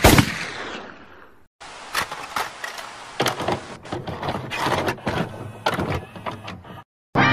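The last notes of a music track fade out. After a brief gap, a videocassette recorder's tape mechanism clicks and whirs irregularly for about five seconds. Keyboard music starts right at the end.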